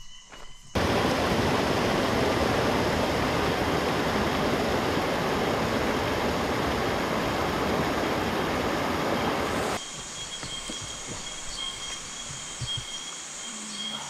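Shallow stream rushing over rocks, a loud even hiss that starts suddenly about a second in and cuts off abruptly after about nine seconds. It gives way to a quieter forest background with a steady high-pitched buzz.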